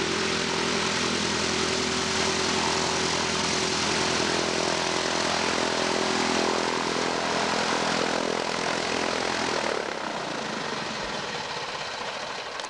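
Piston engine and propeller of a light single-engine high-wing plane running close by as it taxis, a loud steady drone. About ten seconds in it turns quieter and lower.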